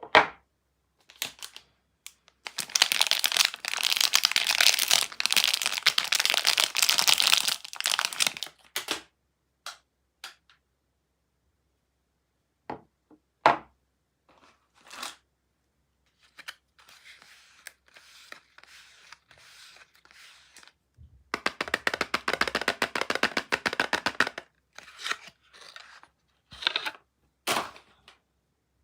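Soap bars being unwrapped by hand: packaging tearing and crinkling in two long stretches, with a fainter rustle between them and scattered sharp clicks and taps.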